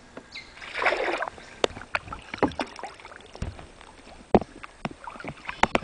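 Canoe paddling: a paddle stroke splashes through the water about a second in, followed by irregular sharp knocks and smaller splashes of paddles against the water and the hull.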